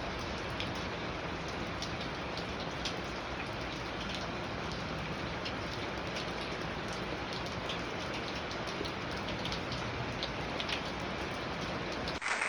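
Steady hiss of falling water, sprinkled with small, sharp drop splashes, like rain hitting a surface.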